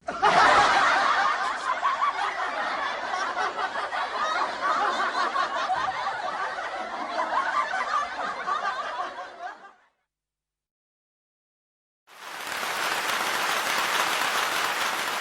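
Canned crowd laughter: many people laughing together, fading out after about ten seconds. After a two-second silence, a different steady, hiss-like noise effect begins.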